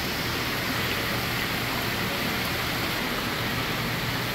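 Steady rush of water spraying from perforated PVC inflow pipes and splashing into round fish-rearing tanks, with a steady low hum underneath.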